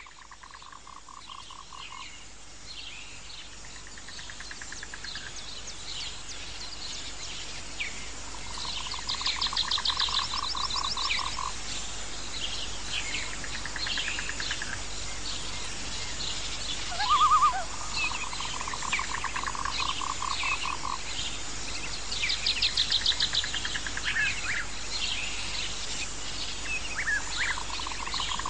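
Wildlife soundscape of animal calls. Repeated pulsed trills, each about two seconds long, rise over a constant scatter of short high chirps. The sound fades in over the first few seconds.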